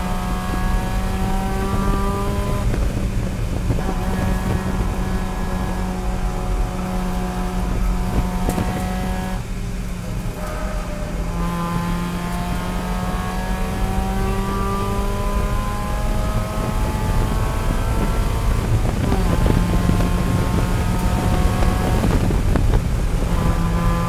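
A race car's engine at high revs under throttle, heard from inside the cockpit. Its pitch slowly climbs and drops back about three times.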